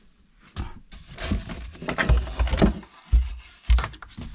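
Handling noises from work on a wall panel: a run of knocks and heavy thumps with scraping in between, thickest from about a second in.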